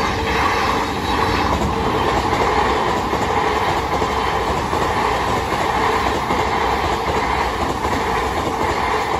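Odakyu Line electric commuter train passing close by over a level crossing. Its wheels run loudly over the rails, and the crossing's warning bell rings steadily underneath.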